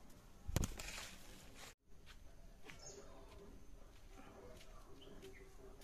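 Faint rural outdoor background with a few distant bird chirps and small clicks. About half a second in, a single loud thump with a short rustle, which stops abruptly.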